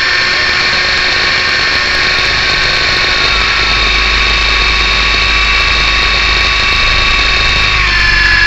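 Whine of an MJX F645 RC helicopter's motors and rotor, picked up by the camera mounted on the helicopter itself, running steadily in flight and shifting in pitch near the end.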